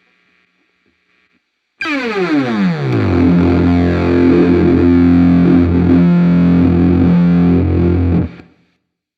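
Electric guitar through distortion and effects pedals: after a silent start it comes in loud about two seconds in with a steep downward pitch dive, then holds a heavy distorted chord that is cut off abruptly near the end.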